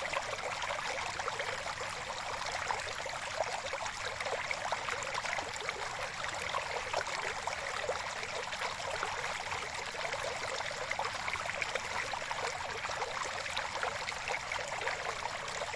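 Running water, a steady babbling flow with fine, continuous splashing and no let-up.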